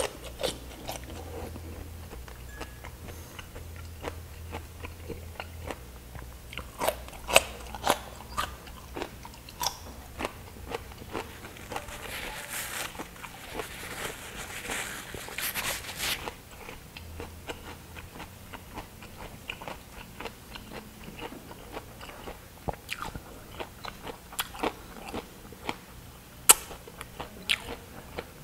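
Close-up eating sounds: crisp crunching bites of raw cucumber and wet chewing, with sharp mouth clicks throughout. A few seconds past the middle, a longer rustling stretch as a paper napkin wipes the mouth.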